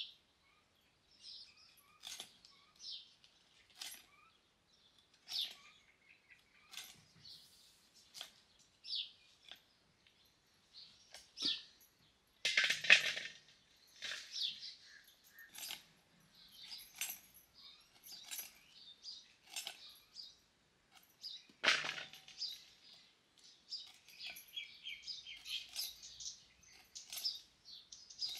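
Drumstick pods being chopped on an upright hand blade (vili) fixed to a wooden block: a run of short, sharp cracks and snaps as the tough pods are cut through, with two louder knocks, about halfway and again later. Birds chirp in the background, busiest near the end.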